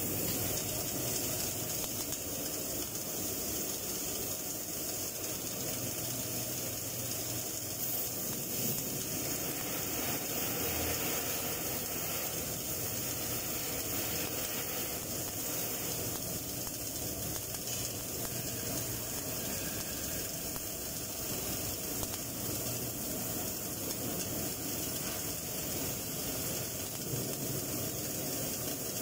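Stick-welding arc hissing and crackling steadily while running an overhead butt weld on steel plate.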